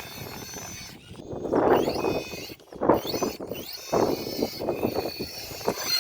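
RC rock crawler's 2500kv Revolver electric motor whining up and down in short bursts of throttle, with its tires scrabbling and grinding over rock between the spurts.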